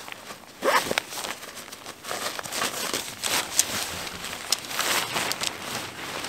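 Irregular rustling and crinkling of handled material, with scattered short clicks and a brief rising sound about a second in.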